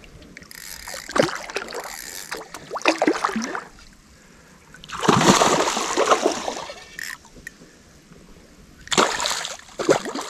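A big hooked bowfin thrashing and splashing at the surface beside the boat while it fights the line. The splashing comes in three bursts, the loudest about five seconds in.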